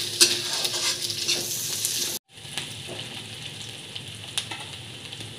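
Sliced onions, ginger and garlic sizzling in mustard oil in a kadai, with a spatula scraping and clicking against the pan as they are stirred. About two seconds in, the sound cuts out for a moment; then the sizzling goes on more quietly, with hardly any stirring.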